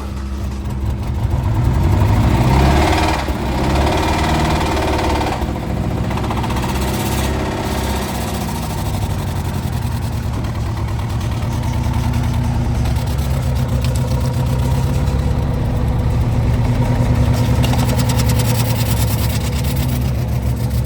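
Chevy HHR's four-cylinder engine, which has a bad rod knock, revving up about two seconds in, dropping back, then running steadily.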